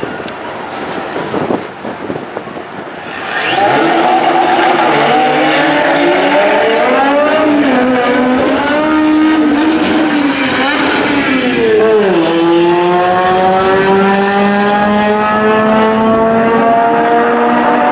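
Two import drag cars, a blue Honda CRX and a dark hatchback coupe, running roughly at the line, then launching about three and a half seconds in and accelerating hard down the drag strip. The engines rise in pitch through each gear and drop back at every upshift, ending in one long climb in a high gear.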